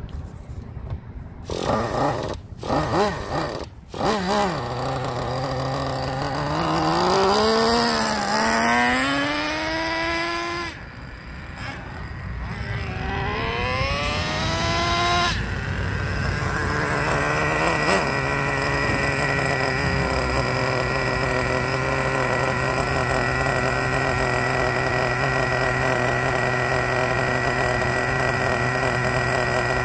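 Traxxas TRX 3.3 nitro engine of a Slayer Pro 4x4 RC truck during break-in. After a few short blips, it twice climbs in pitch under throttle and cuts off suddenly each time. It then settles into a steady idle with a high whine.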